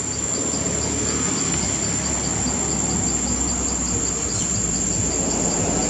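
Insects calling: one steady high-pitched drone with a second insect chirping in a quick regular pulse, about three or four chirps a second, over a steady low rumble of background noise.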